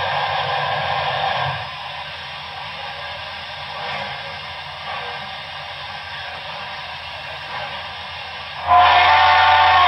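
Digital sound decoder of an HO-scale Broadway Limited Paragon 4 GS-4 model steam locomotive: a steady steam hiss that drops to a quieter level about a second and a half in, then a loud chime steam whistle blast starting near the end.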